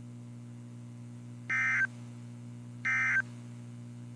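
NOAA Weather Radio EAS/SAME end-of-message data bursts: short, buzzy digital chirps, two of them over a second apart with a third starting at the very end, each about a third of a second long. They mark the close of the weather message. Beneath them runs a steady low hum from the radio receiver.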